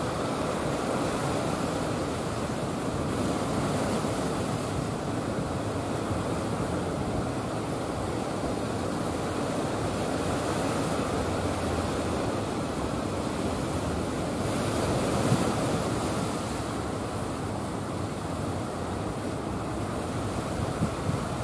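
Steady rush of surf and choppy water breaking in a shallow river mouth, with wind on the microphone.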